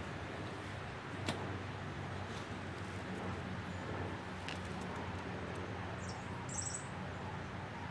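Outdoor birdsong ambience over a steady low background hum, with a short high bird chirp about six and a half seconds in and a faint single click a little after a second in.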